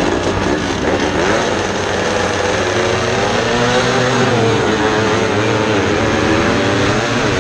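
Vintage race car engine running hard at racing speed, its pitch rising and falling repeatedly as it accelerates and lifts.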